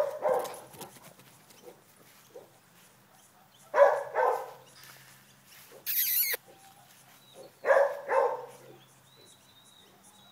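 A dog barking in short pairs, about four seconds apart. There is a brief hiss about six seconds in.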